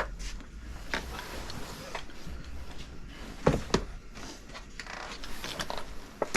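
Scattered knocks and clicks, two sharp ones close together about three and a half seconds in, over a low steady hum.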